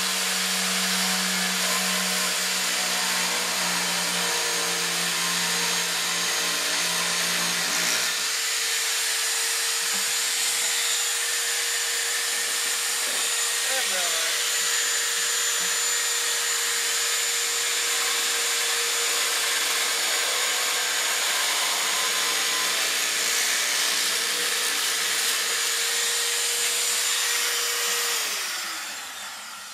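Handheld electric sheet-metal shear running with a steady motor whine as it cuts sheet steel, then winding down near the end.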